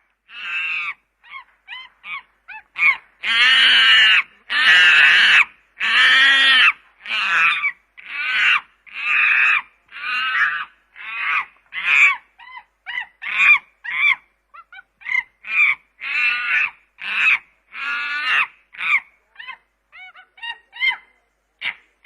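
Chimpanzee calling in a long run of high, harsh screams, the longest and loudest about three to seven seconds in, followed by shorter, quicker calls.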